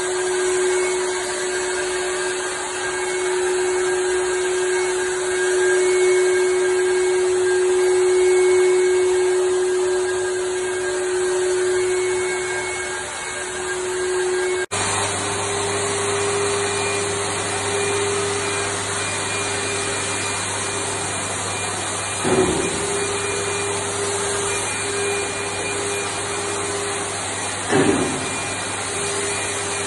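Handheld corded electric disinfectant sprayer running steadily, its motor a continuous high hum with a hissing spray. About halfway the sound cuts and picks up again with a slightly higher hum and a low drone under it. Two brief knocks come in the second half.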